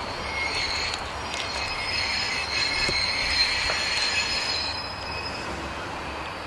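Steel wheels of a diesel railcar squealing: a steady high-pitched squeal of two held tones, loudest about three seconds in, over a low engine rumble.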